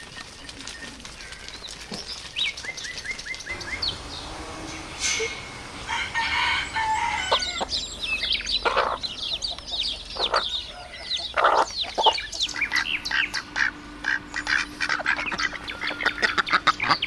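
Chickens calling in a poultry yard: a steady stream of short, high chirps, with louder clucks and calls through the middle.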